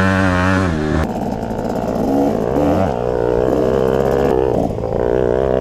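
Honda CRF150R's single-cylinder four-stroke engine revving under throttle on a dirt motocross track. The pitch climbs, drops sharply about a second in, then rises and falls with the throttle.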